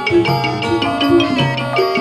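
Instrumental music with drums and quick, evenly struck pitched notes.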